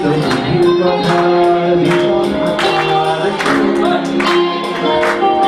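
A live band plays a song while a man sings into a stage microphone, backed by electric guitar and keyboard, with regular percussion hits keeping the beat.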